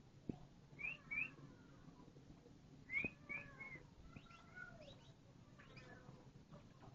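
Canary giving short, rising whistled chirps in quick groups, two about a second in and three about three seconds in, followed by fainter, softer calls, over a low steady hum.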